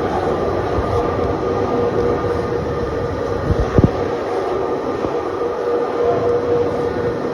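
Steady machine hum with a constant tone, and two sharp knocks close together about halfway through, likely metal parts of the mixer being handled.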